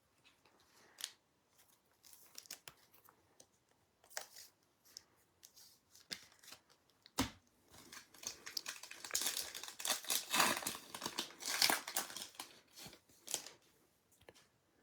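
Trading-card handling, with scattered small clicks and taps, then a card pack's wrapper being torn open and crinkled for several seconds, starting about eight seconds in.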